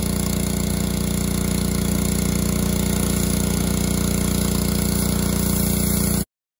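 Pressure washer running: a steady motor drone with the hiss of the spray. It cuts off suddenly near the end.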